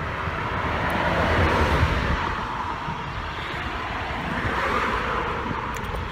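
Road traffic passing close by: a tyre-and-engine wash that swells about a second in and again near the end, over wind buffeting the microphone with a low rumble.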